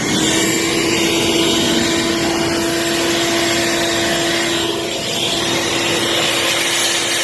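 Vacuum running steadily at full speed with a constant hum, sucking water and sludge out of an air handler's condensate drain line.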